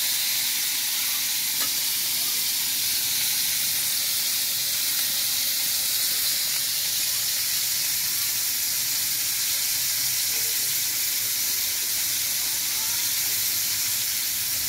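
Several whole fish frying in oil in a metal pan, a steady even sizzle.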